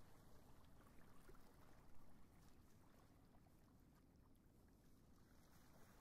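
Near silence: a faint, steady wash of small waves over a shallow tidal flat, with a few faint ticks. No bird calls.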